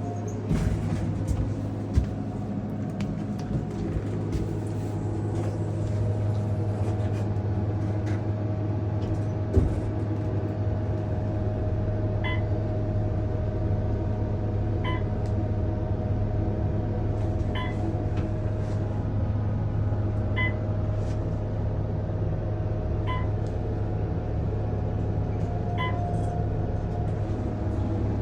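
Steady low mechanical hum, like an idling vehicle, with a few knocks in the first seconds. From about halfway through, a short beep repeats about every two and a half seconds.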